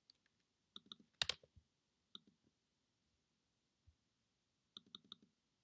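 Faint, scattered clicks of a computer keyboard and mouse: a small cluster just under a second in, a sharper click just after, and another quick cluster of four or five clicks near the end.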